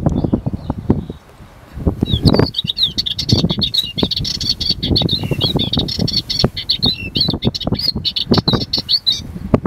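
Sardinian warbler singing a fast, jumbled warble of high notes that starts about two seconds in and runs for about seven seconds. Underneath is a loud, irregular low rumble.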